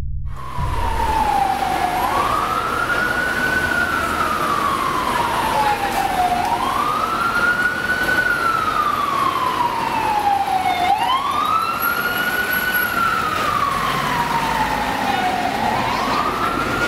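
An emergency vehicle's siren wailing, each cycle rising quickly and then falling slowly, about every four and a half seconds, over steady city street traffic noise.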